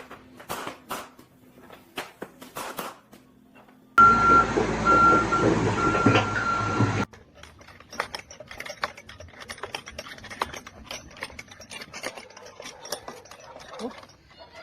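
Knocks and taps, then about three seconds of loud heavy machinery running with a high beeping alarm tone that cuts in and out, which stop suddenly and give way to continuous clattering and rattling.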